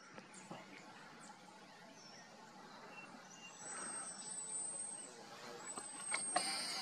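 Quiet forest ambience with two long, thin, very high whistles, one after the other, a little past the middle. Near the end a steady high hiss sets in suddenly.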